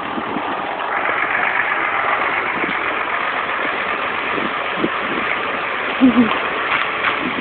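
Tractor engine idling steadily, with a couple of brief sharper sounds about six seconds in.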